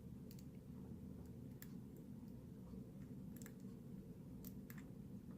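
A lock pick working the pin stacks inside a Brinks 40 mm brass padlock: a few faint, irregularly spaced clicks over a low steady hum.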